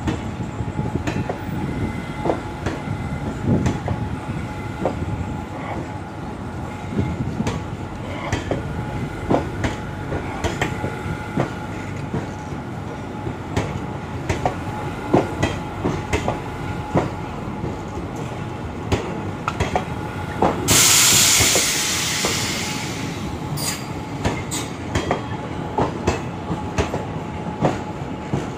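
Passenger coaches of a departing Indian Railways express rolling past, their wheels clicking irregularly over the rail joints with a thin steady squeal above the rumble. About twenty seconds in, a loud hiss starts suddenly and fades over about two seconds.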